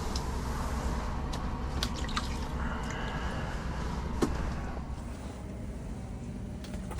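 Water sloshing and dripping in a hole in the ice as a small sturgeon is let back down it, with a few sharp clicks; it goes quieter after about five seconds.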